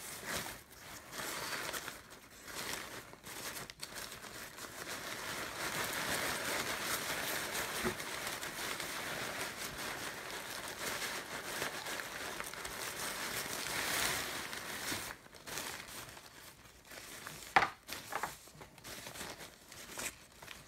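Thin nylon fabric of an airblown inflatable crinkling and rustling as it is handled and bunched up, busiest through the middle stretch. There is one short sharp click a few seconds before the end.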